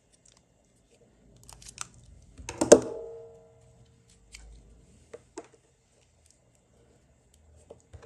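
Scattered small clicks and scrapes from a cable stripper scoring and pulling the jacket off a CAT6 cable, with one sharp knock about two and a half seconds in that rings briefly.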